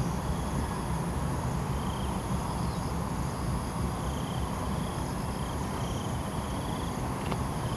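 Insects calling in short pulsed trills that recur every second or so, over steady high-pitched insect drone and a low, even background rumble.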